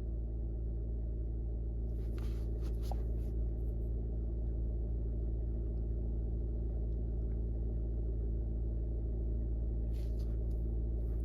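Skoda Kodiaq's engine idling steadily, a low even hum, with faint brief rustles about two seconds in and again near the end.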